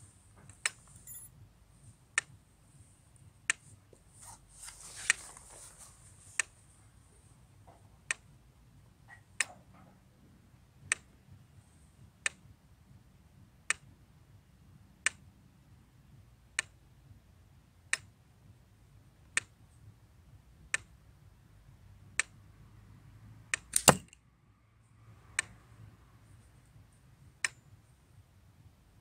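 Sharp, even ticking about once every one and a half seconds, and near the end one much louder sharp crack, just after a faint click. The crack is an 8 mm steel ball from a slingshot striking the target.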